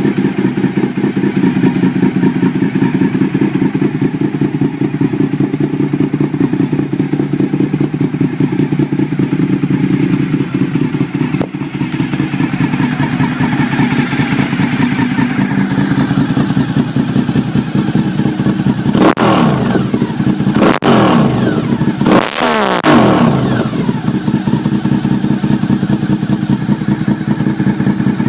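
Honda RC51's V-twin engine idling steadily through SP Engineering carbon dual exhausts, with three quick throttle blips about two thirds in, each rising and falling in pitch.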